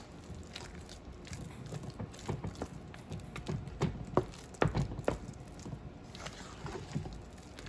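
Wooden spoon stirring thick mashed potatoes in a metal pot, with irregular soft knocks and squelches as the spoon works the mash and strikes the pot.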